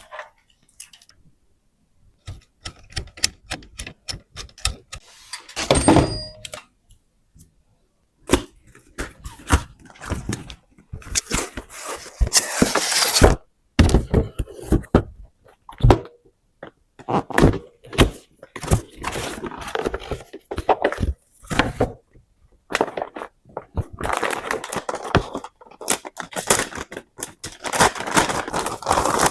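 Desktop PC parts being handled and fitted into a case by hand: a string of sharp clicks and knocks, with longer stretches of rubbing handling noise about twelve seconds in and again near the end.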